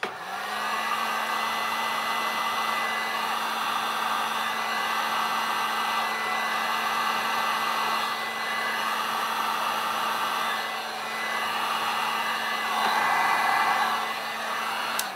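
Heat gun on its low setting blowing over freshly poured epoxy resin to pop the surface bubbles. It switches on with its motor hum rising to a steady pitch, the rush of air swelling and fading a little as it moves, and it cuts off near the end.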